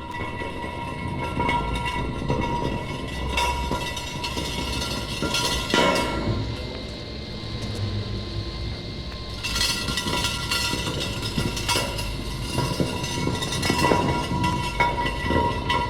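Railway train running on the rails, a steady rattle with knocks and held high ringing tones, rising out of near silence at the start.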